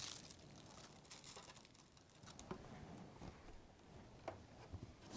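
Near silence with faint rustling and a few light taps: bagged plastic lab items being set down on a desk and taken out of a cardboard box.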